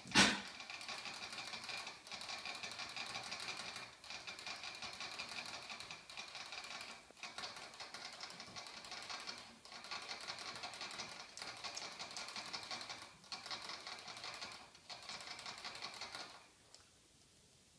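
A sharp knock, then rapid scratching and clicking in bursts of one to three seconds with short pauses between: a Jack Russell terrier's claws scrabbling on a hard surface. It stops shortly before the end.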